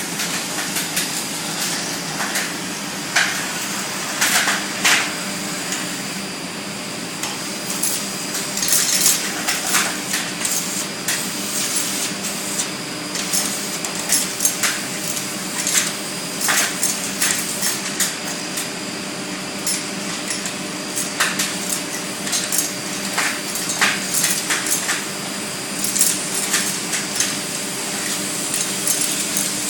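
Vacuum cleaner running with a steady motor hum, and irregular clicks, knocks and clattering over it throughout.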